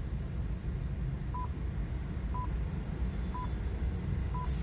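Radio top-of-the-hour time signal: short high beeps, one a second, four of them here, over a steady low rumble in a car cabin.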